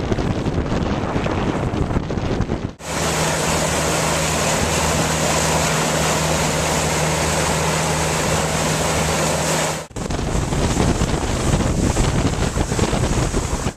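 Outboard motor running steadily as a boat moves under way, with wind buffeting the microphone and water rushing past the hull. The sound cuts abruptly about three seconds in and again about ten seconds in; near the end the rush of water and spray dominates.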